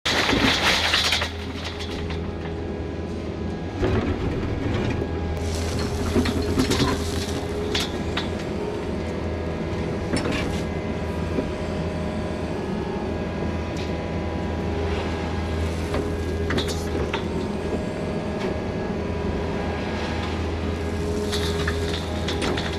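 Mini excavator's diesel engine running steadily, with base rock pouring from the bucket onto the culvert pipe in the first second and scattered knocks and clanks of the bucket and rock.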